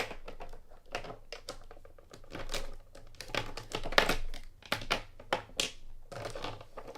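Copic alcohol markers being handled: a string of irregular plastic clicks and rustles as markers are picked up and uncapped, several strong ones around the middle.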